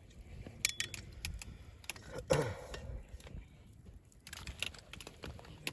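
Wood campfire crackling, with irregular sharp pops and snaps. About two seconds in, one louder short sound falls in pitch.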